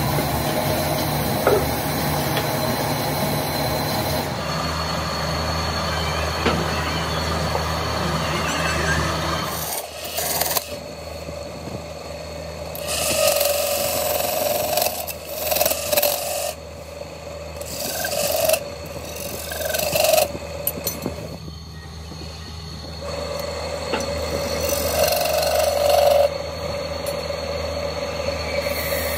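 Belt-driven electric wood lathe running with a steady hum as a wooden hotpot spins on it. A hand-held steel turning tool scrapes the spinning wood in repeated cuts, some short and some several seconds long, mostly in the second half.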